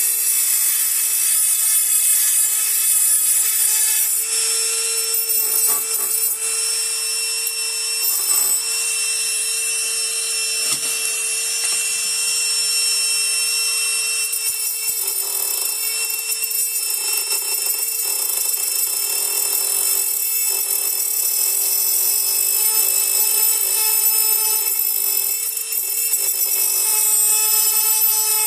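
High-speed rotary tool running steadily with a high-pitched whine, its pitch wavering slightly around the middle as it is worked, grinding or cutting a part of the rifle furniture.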